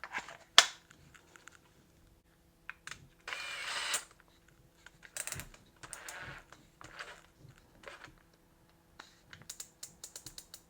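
Clicks, ticks and clatter of a cordless hammer drill's plastic keyless chuck being twisted and ratcheted by hand, with one short burst of noise a little over three seconds in and a quick run of ticks near the end.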